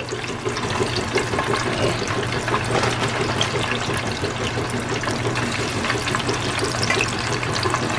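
A fresh batch of raw french fries in hot frying grease, bubbling and sizzling steadily with dense fine crackling as the moisture boils off.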